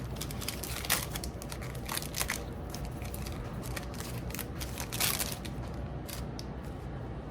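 A trading-card pack wrapper is crinkled and torn open, with scattered sharp crackles, several of them at uneven intervals.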